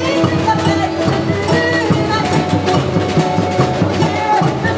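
Live samba band playing: drums and percussion keep a steady, dense samba beat under cavaquinho strumming and a melody line.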